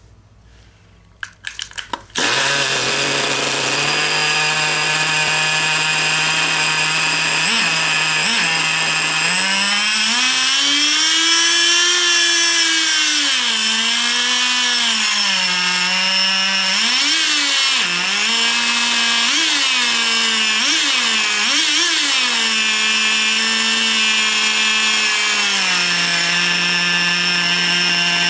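Small two-stroke glow-fuel engine of a nitro RC car: a few short pops, then it catches about two seconds in and idles with a high, buzzing note. The throttle is blipped twice, then revved up and down several times before the engine settles back to a steady idle near the end.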